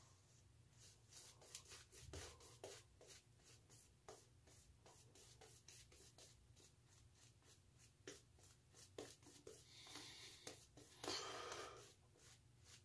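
Shaving brush painting lather onto the face for the second pass: faint, quick bristle swishes and rubs against the skin, with a brief louder rush about eleven seconds in.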